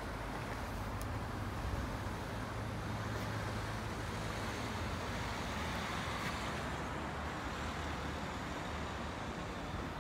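Road traffic from the street below: a steady hum of cars, swelling in the middle as a vehicle passes.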